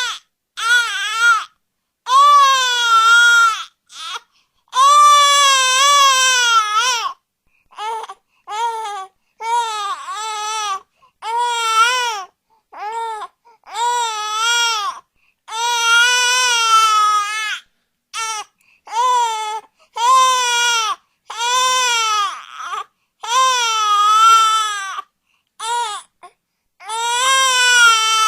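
Baby crying hard: a long string of loud wails, each rising and falling in pitch, some short and some lasting two seconds or more, broken by brief pauses.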